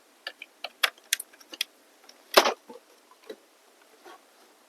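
Light clicks and small rattles, then one louder knock about two and a half seconds in: hands handling gear as an HDMI cable is plugged in.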